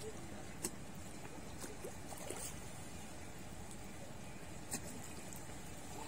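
Faint, steady low rumble of riverside ambience, with a few soft clicks.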